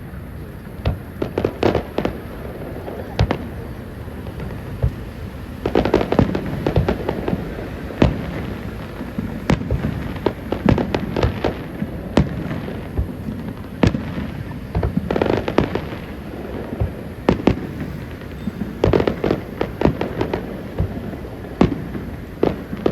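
Aerial fireworks bursting: many sharp cracks and booms come in clusters, several a second at the busiest, over a constant low rumble of shell bursts.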